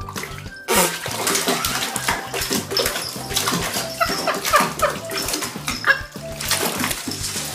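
A cat splashing and scrambling in shallow bathwater, starting suddenly about a second in, with repeated loud, wavering meows as it struggles to climb out of the tub. Background music runs underneath.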